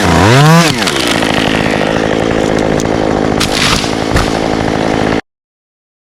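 Chainsaw revving, its pitch dipping, climbing and dropping again, then running steadily as it cuts into the ash wood. The sound stops abruptly about five seconds in.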